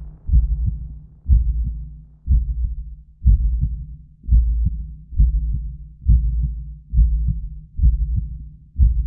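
Heartbeat sound effect: deep, low thumps, about one a second, each dying away before the next.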